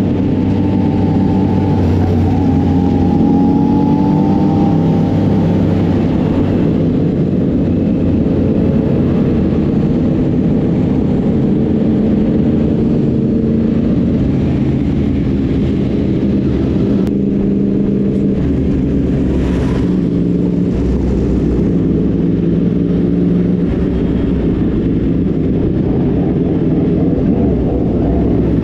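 Several sport motorcycle engines running at low revs while the bikes roll slowly together, their pitches holding mostly steady with small rises and dips.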